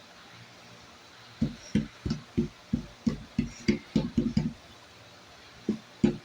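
A small hammer tapping on a plaster dig block: about a dozen quick, sharp knocks over three seconds, then a couple more near the end.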